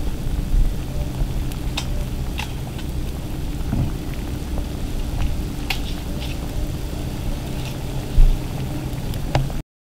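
Pot of water at a rolling boil with prawns cooking in it: a steady bubbling rumble with scattered sharp pops. A single low thump about eight seconds in, then the sound cuts off abruptly just before the end.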